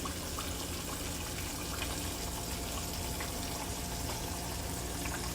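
Steady rush of running water, over a faint low hum.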